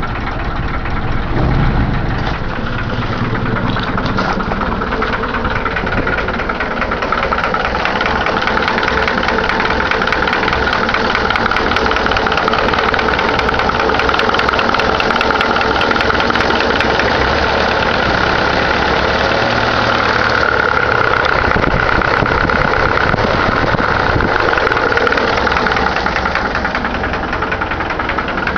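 Chevrolet Caravan's four-cylinder engine idling steadily just after a cold start. A fast, light ticking or knocking runs over it: the strange engine noise that the owner cannot identify.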